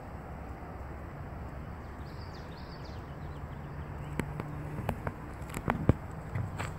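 Open-air ambience: a steady low rumble, a few faint high bird chirps about two seconds in, and a run of sharp clicks and taps in the second half.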